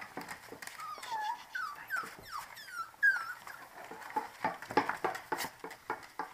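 Month-old puppies whining and yipping in a run of short, high, squeaky calls while they play, amid scattered clicks and knocks.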